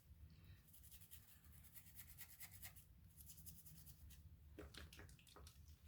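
Faint, quick scrubbing strokes on a Swiss Army knife, working into the crevices between its opened tools, in short runs with a pause partway through.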